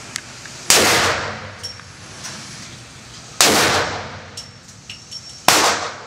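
Three gunshots from a handgun, spaced about two to three seconds apart, each cracking out and fading quickly, with faint high metallic pings in between.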